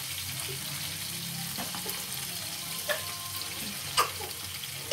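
Chicken and vegetable skewers sizzling as they shallow-fry in oil, a steady hiss with a few sharp pops, the loudest about four seconds in.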